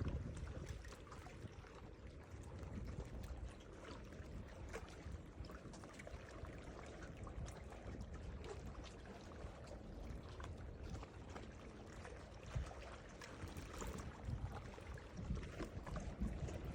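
Ocean water lapping and splashing in many small, irregular splashes over a steady low rumble.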